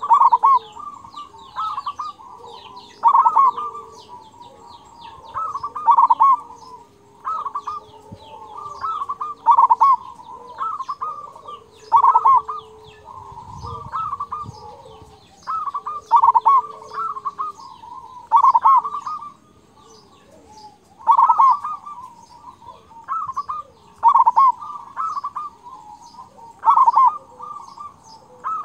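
Zebra dove (perkutut) singing, short phrases of quick coos repeated every two to three seconds, a bird the keeper calls gacor with a big 'kung' voice. Small birds chirp faintly in the background.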